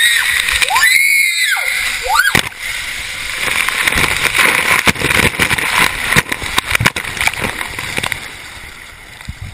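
A person shrieking in short rising and falling cries for the first couple of seconds, then water splashing and sloshing close by with many sharp knocks and taps, growing fainter toward the end.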